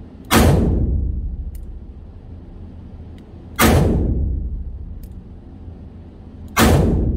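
Three shots from a Taurus RT 889 .38 revolver with a six-inch barrel, fired deliberately about three seconds apart, each report ringing out in a long echo that fades over a second or two.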